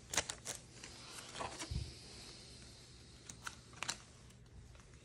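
Foil booster-pack wrapper crinkling and Pokémon trading cards being handled, with a scatter of light clicks and taps, a soft thump about two seconds in, and a few more card clicks near the end.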